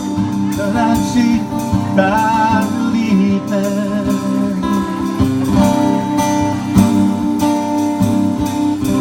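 Acoustic guitar playing the closing bars of a song, with a short wordless vocal line.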